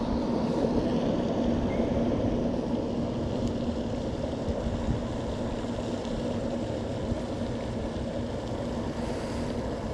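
Steady machine-like drone with a constant low hum and no distinct events.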